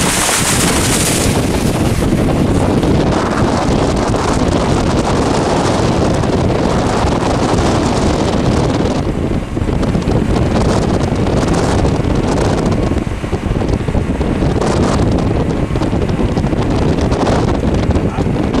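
Wind blowing across the camera microphone: a loud, continuous rumbling rush that swells and eases in gusts.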